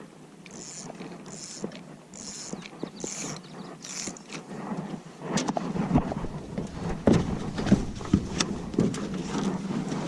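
About five evenly spaced scratchy strokes, then a run of sharp knocks and heavy thumps as someone moves about and handles gear in a small fishing boat.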